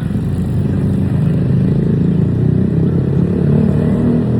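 A motor vehicle's engine running steadily, a low drone.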